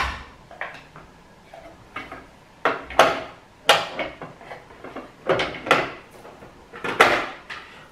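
Hard plastic clacks and knocks as the removable accessory tray of an Elna HD-1000 sewing machine is slid back onto the free arm and pressed into place, a handful of sharp, uneven clicks with quiet handling between; the machine's motor is not running.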